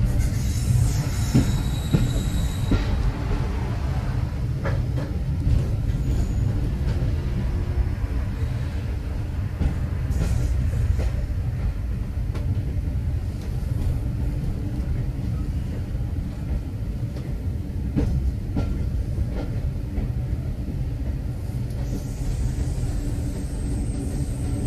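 Railway carriage running along the line, heard from inside the coach: a steady low rumble with a few scattered clicks from the wheels on the track.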